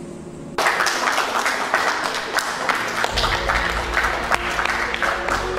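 Applause breaks out suddenly about half a second in and carries on steadily, many hands clapping at once. Music comes in underneath, with a low bass joining a few seconds in.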